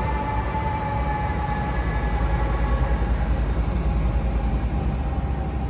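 Fire truck siren winding down, a steady whine sliding slowly lower in pitch, over a low engine rumble.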